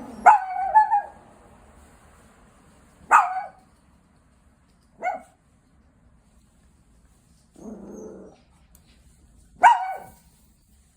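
Chihuahua giving warning barks: four sharp barks a couple of seconds apart, the first and last the loudest, with a short low growl shortly before the last one.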